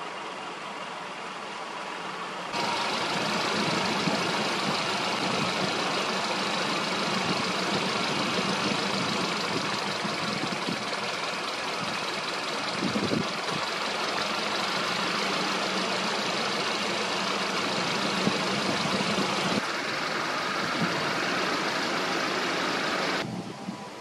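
Tobu 8000 series electric train's underfloor equipment running steadily with a low hum. It starts abruptly about two and a half seconds in and cuts off just before the end.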